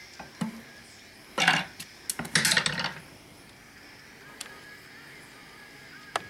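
Hammers being handled and hung in forged 1018 steel hooks on a wooden anvil stump: a few short scrapes and knocks of metal and wood, the longest about two to three seconds in, then a couple of faint clicks near the end.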